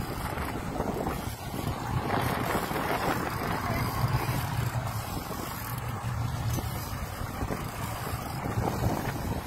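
Twin Yamaha 200 outboard motors running steadily with a low hum, under wind noise buffeting the microphone.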